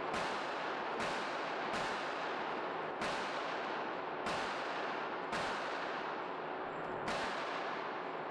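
Gunshots from other lanes of an indoor range: about seven single shots at uneven gaps of roughly one to a second and a half, each ringing out in a long echo.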